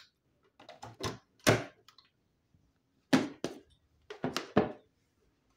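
A series of sharp plastic clicks and knocks from handling a USB phone charger: the cable being plugged into the charger and the charger pushed into a power strip socket. The knocks come in two clusters, about a second in and again around three to four and a half seconds in.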